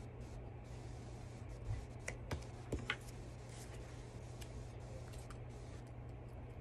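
Quiet paper-craft handling over a steady low room hum: a few light taps and clicks about two to three seconds in, as fingers press paper circles onto paper on a tabletop and a glue stick is dabbed on them.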